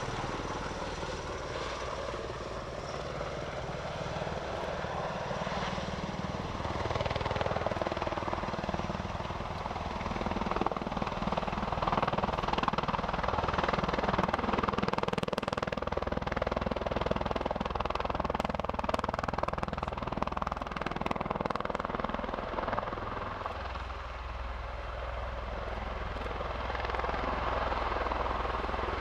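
Bell Boeing MV-22B Osprey hovering low in helicopter mode, its two large proprotors and twin Rolls-Royce AE1107C turboshaft engines running steadily. The sound swells to its loudest in the middle, eases off a little a few seconds before the end, then builds again.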